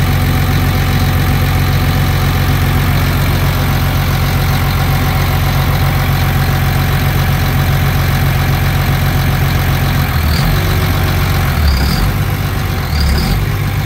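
Cat C7 inline-six diesel engine of a Rotochopper MP2 horizontal grinder idling steadily at about 900 rpm. About ten seconds in, as the grinder's clutch is engaged, the steady engine note turns into an uneven low rumble, and three short high chirps follow, each about a second and a bit after the last.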